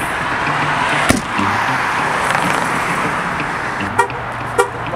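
A car passing close by on a street, a steady rush of engine and tyre noise, with a sharp click about a second in and a quick run of short sharp sounds near the end.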